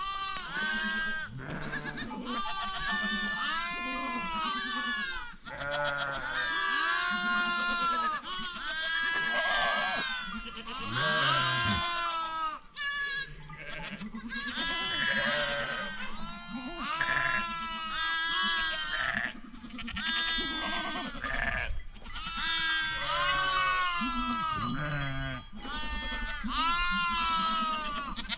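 A flock of goats and sheep bleating, many calls overlapping one after another without a break.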